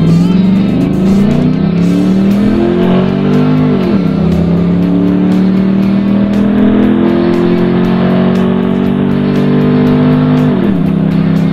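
Dodge Ram pickup's engine accelerating hard, heard from inside the cab. The engine note climbs for about four seconds, falls as the truck shifts up a gear, climbs again more slowly and falls with another upshift near the end.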